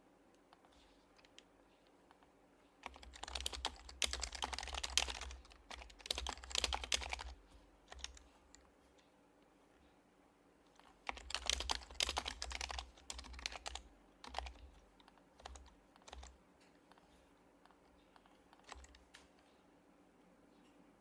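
Typing on an HHKB Professional Hybrid Type-S keyboard with silenced Topre switches. There are two dense runs of keystrokes, each a few seconds long, the first a few seconds in and the second just past halfway, followed by scattered single keystrokes.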